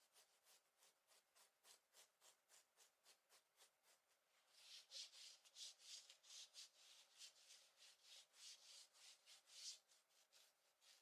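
Faint scratching on clothing fabric, a quick even rhythm of strokes about three a second, growing louder about halfway through.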